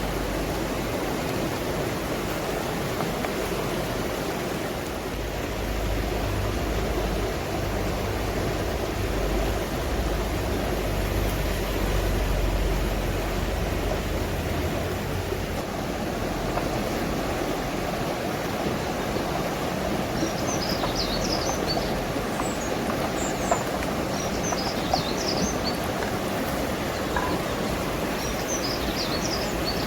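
Steady outdoor rushing noise, with a low rumble from about six to fifteen seconds in and a small bird chirping in short quick groups in the last third.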